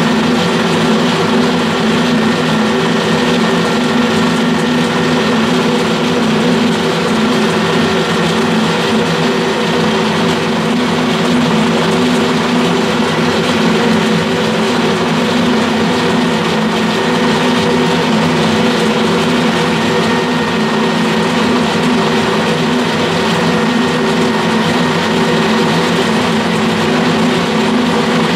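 Colchester Student gear-head metal lathe running steadily with a constant gear whine, its tool taking a roughing cut along a thin aluminium spindle.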